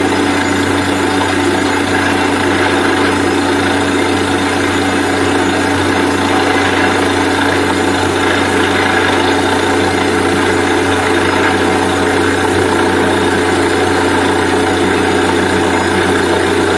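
Borewell drilling rig's engine running steadily, a loud even drone that holds the same pitch throughout.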